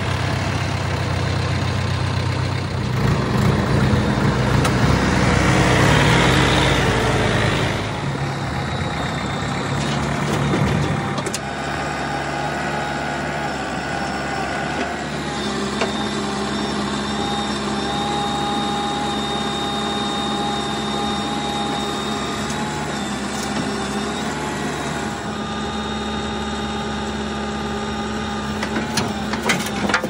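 Diesel engine of a JCB 3DX backhoe loader running under work as it digs soil and loads it into a tractor trolley, its engine note shifting as the arm is worked. There is a stretch of louder hiss a few seconds in, and a few sharp knocks near the end as the bucket empties soil and stones into the steel trolley.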